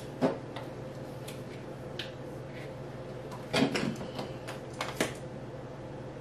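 Plastic clicks and light knocks from handling a hand balloon pump and a latex balloon, with a short rattling clatter about three and a half seconds in.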